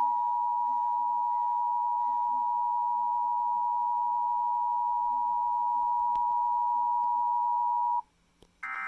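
Emergency Alert System attention signal: a steady, loud tone just under 1 kHz held for about eight seconds, then cutting off suddenly, announcing a tornado warning from the National Weather Service. Just before the end a short, harsh buzzing burst of coded tones begins.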